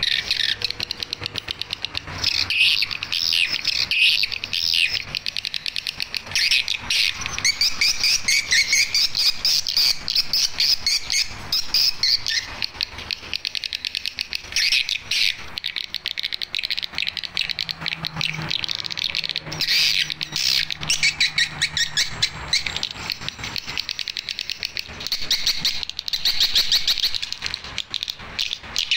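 Swiftlet lure calls played back through a horn tweeter driven by a NESTPRO BS-20 swiftlet amplifier: a continuous, rapid high-pitched twittering of chirps and clicks.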